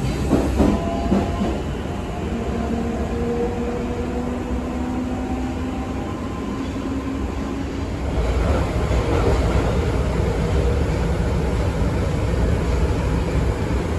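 Osaka Metro 30000A series subway car heard from inside while running, its Hitachi IGBT VVVF inverter and traction motors whining in several steady tones over the rumble of wheels on rail. A little past halfway the whine fades out and the running rumble gets louder.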